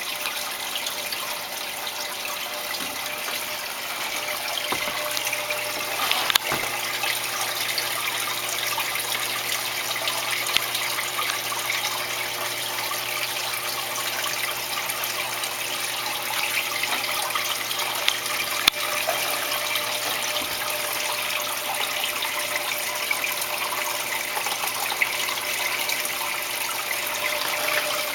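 Steady running, splashing water from an aquarium's filter return, with a faint low hum underneath.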